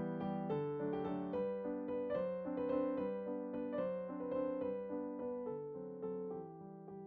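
Background piano music: a gentle tune of evenly paced notes.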